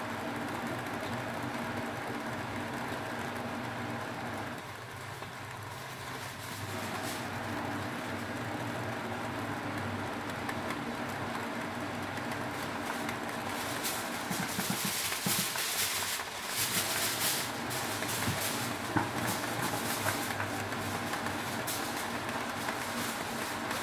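Steady rumble and hum of a gas stove burner heating a foil-wrapped tilapia packet. From about fourteen seconds in, crackling and sizzling join it, from the fish cooking inside the foil over the flame.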